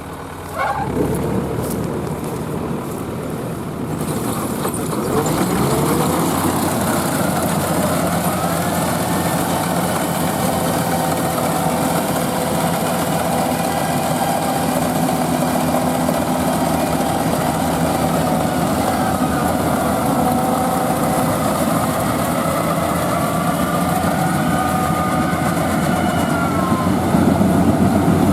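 Rice combine harvester running: a steady diesel engine and machinery drone. The engine revs up about five seconds in, then holds steady.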